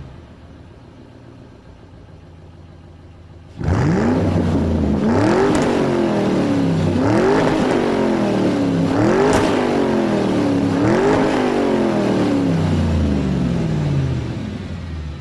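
Car engine revved hard about four times in a row, each rev climbing quickly in pitch and sinking back, with two sharp cracks among them, then winding down near the end. It starts abruptly after a few seconds of low background.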